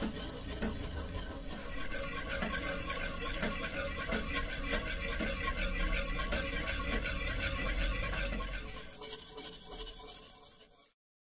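A wire whisk stirring a thick egg halwa mixture in a metal pan, giving steady, irregular scraping and slopping against the pan. It cuts off abruptly near the end.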